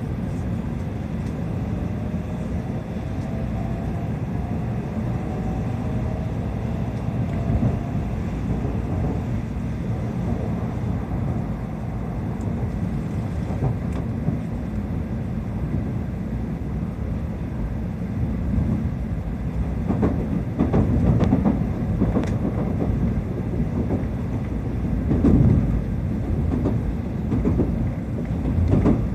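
Tokaido Shinkansen Nozomi train running, heard from inside the passenger car: a steady low rumble of wheels and car body, growing louder and rougher in spells about two-thirds of the way through and again near the end.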